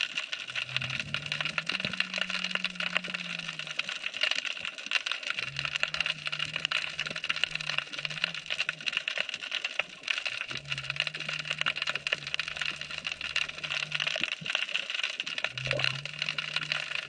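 Underwater crackling: a dense, steady field of clicks and snaps typical of snapping shrimp around the pilings, heard through the camera's waterproof housing. A low hum starts and stops several times underneath it.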